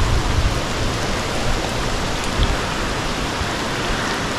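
Rain falling steadily, a dense even hiss with a low rumble underneath.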